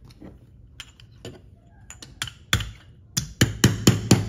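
Claw hammer striking a nail axle through a Pinewood Derby wheel into a 3D-printed plastic car body: a few light taps, then a quick run of sharp strikes, about five a second, from about three seconds in.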